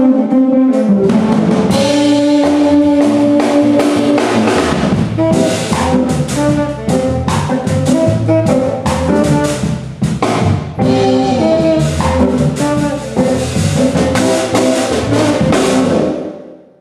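Jazz trio playing: tenor saxophone over eight-string guitar and drum kit, with held sax notes and busy drum and cymbal hits. The music fades out near the end.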